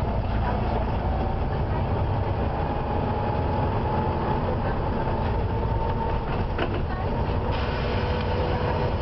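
Volvo B7TL double-decker bus's six-cylinder diesel running under way, with a faint high-pitched whine that rises gently in pitch over the first several seconds. This is the screech when accelerating that the uploader puts down to a squealing fan belt.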